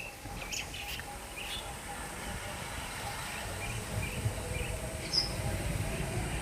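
Birds chirping in scattered short calls, one sharper, higher call about five seconds in, over a low outdoor rumble that grows near the end.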